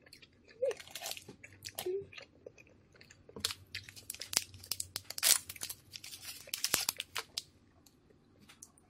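Crinkly plastic candy wrapper being rustled and torn open by hand: a run of sharp crackles and rustles, loudest about five seconds in.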